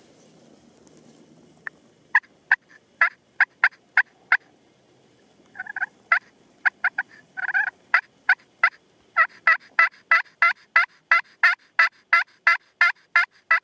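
Hand-cupped mouth turkey call giving a long series of short hen-turkey yelps. A few scattered notes and short groups come first, then a steady, quicker run of yelps, about three a second, through the second half.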